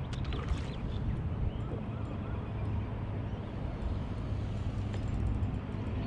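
Steady low rumble of wind buffeting the microphone over open water, with a few faint high chirps in the first second and some light ticks about five seconds in.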